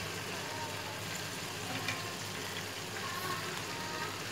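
Hot oil sizzling steadily in a pan as eggs with tomato and onion fry, with a spatula moving through the pan.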